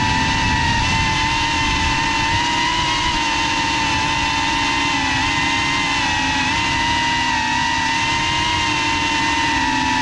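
GEPRC FPV quadcopter's brushless motors and propellers whining steadily, heard close up from the onboard camera, the pitch wavering slightly as the throttle changes.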